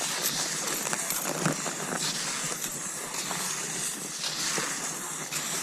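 Cross-country skis swishing over snow in a steady rhythm of strides, with an occasional short knock.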